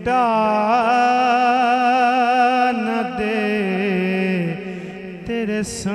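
A man singing an Urdu naat into a microphone, drawing out one long wavering note over a steady low drone, with a brief hiss near the end.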